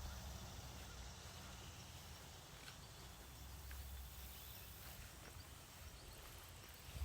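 Quiet outdoor ambience: a faint, steady low rumble with a few soft ticks.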